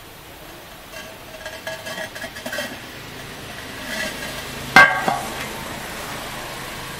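Ceramic toilet-tank lid clinking and scraping as it is handled, then set down on the cistern with a sharp clack, followed by a smaller knock just after.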